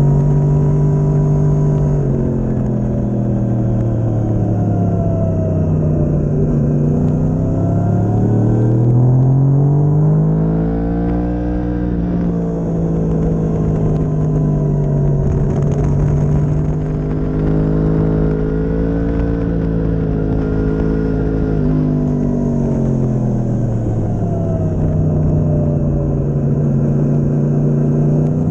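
Sport motorcycle engine at track speed, heard from a camera on the bike: the engine note climbs and falls with the throttle through the lap, with a sudden drop in pitch about two seconds in and again near the end, and a long dip and climb about ten seconds in.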